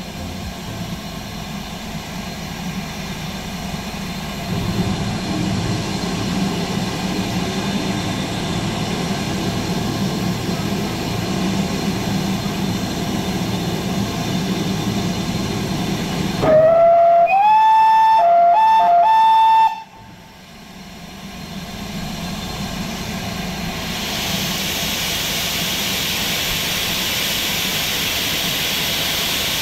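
Steam locomotive whistle, heard from the footplate of a GWR Grange-class engine: one loud blast of about three seconds about halfway through, rising in pitch as it opens and dipping briefly twice before cutting off. A steady rumble and hiss runs before it, and a louder steam hiss builds up near the end.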